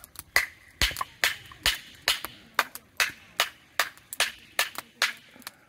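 Hatchet driven down through a split of firewood by repeated strikes from a mallet, splitting kindling: a steady run of sharp wooden knocks, about two and a half a second.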